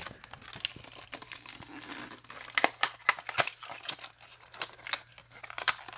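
Plastic blister packaging and its card backing crinkling and crackling in the hands as die-cast toy cars are taken out of their packages, with irregular sharp crackles and clicks, thickest around the middle.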